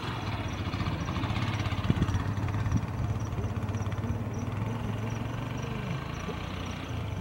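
An engine running steadily with a low hum, with a faint high chirp repeating a few times a second.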